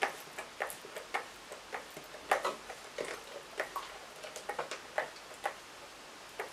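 A plastic trigger spray bottle squirting water onto hair in quick, short spritzes, about two or three a second at an uneven pace.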